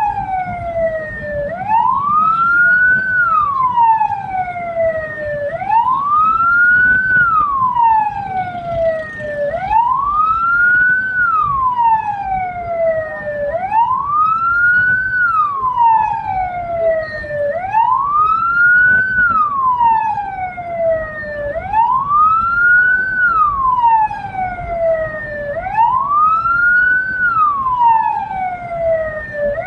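Hearse's electronic siren wailing in a slow, even cycle: rising for about a second and a half, falling for about two and a half, and repeating about every four seconds. Under it runs a low, steady vehicle and road rumble.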